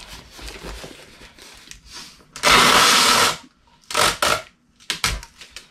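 Packing tape pulled off the roll of a desktop tape dispenser: one loud, rasping rip lasting about a second, about two and a half seconds in. Shorter rips and taps follow as the strip is cut and pressed onto a cardboard box.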